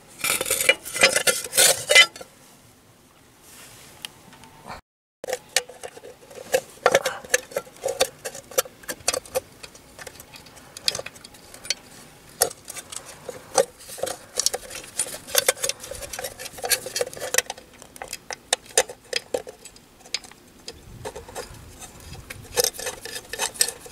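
Irregular metallic clinks and rattles of hand tools and metal parts being handled, broken by a quieter stretch with a sudden gap about five seconds in.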